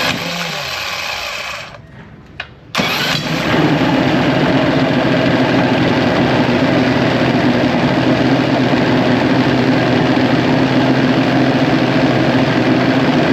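Johnson outboard motor started on its newly replaced electric starter: a first burst dies away about two seconds in, then after a click the engine catches and runs steadily.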